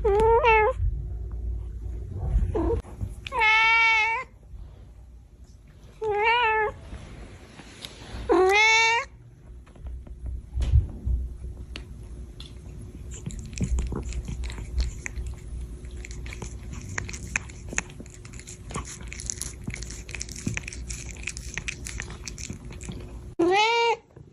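Domestic cat meowing: four meows in the first nine seconds and one more near the end. Between them runs a long stretch of quieter, irregular clicking.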